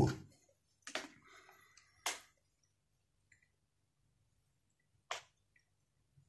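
Three short, sharp clicks in a quiet room: about one second in, again about a second later, and once more near the end, over a faint low hum.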